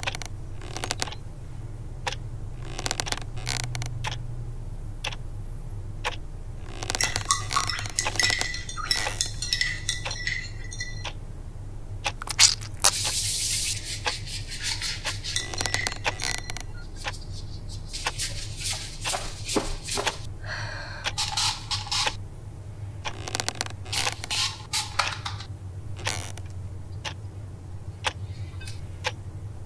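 A string of small clicks, clinks and scrapes of things being handled, with a burst of rubbery rustling about thirteen seconds in as rubber gloves are pulled on. A low steady hum runs underneath.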